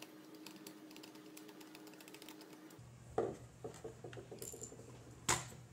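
Faint rapid ticking as screws are driven into a Sparki robot's plastic case with a screwdriver, followed by a few light plastic knocks and clicks as the robot is handled, the loudest about three seconds in and again near the end.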